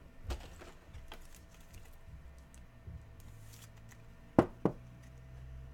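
Trading cards and plastic card holders handled on a table: faint clicks and light taps, then two sharp knocks in quick succession about four and a half seconds in.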